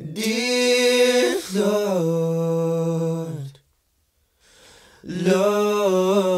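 Male voice singing long, held wordless notes a cappella in layered harmony. There are two phrases, each stepping to a new chord about a second in, with a pause of about a second and a half between them.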